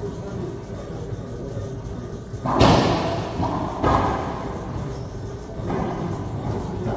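Racquetball serve and rally: the racquet smacks the ball and the ball slams off the court walls. A loud hit comes about two and a half seconds in and rings out in the enclosed court, a second sharp crack follows about a second later, and a softer hit comes near the end.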